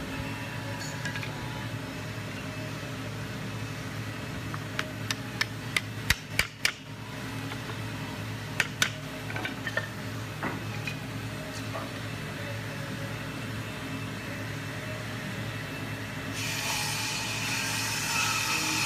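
Wooden strips clacking as they are set down and knocked together on a concrete floor: a quick run of sharp knocks, then a couple more a few seconds later, over a steady low hum. A louder steady hiss comes in near the end.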